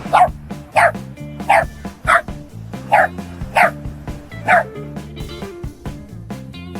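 A dog barking: about seven short yips, each falling in pitch, coming roughly every half-second to second over background music.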